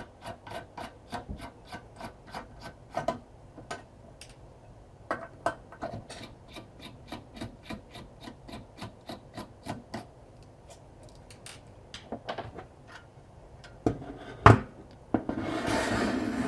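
Small star-head screwdriver turning out the screws that hold the circuit board of a car audio amplifier module: a run of small clicks about three a second, then scattered clicks. Near the end comes a sharp knock, then a short rubbing scrape.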